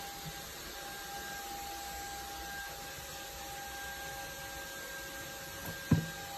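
Steady background hiss with a faint constant hum, and a single short low thump about six seconds in.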